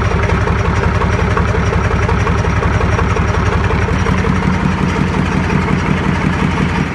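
YaMZ-236 V6 diesel engine running at a steady idle on its first run after a full overhaul, with an even, rapid firing pulse.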